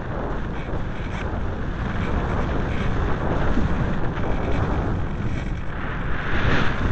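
Airflow buffeting the microphone of a camera riding on an unpowered discus-launch glider in flight: a steady rush of wind noise that swells louder about six seconds in.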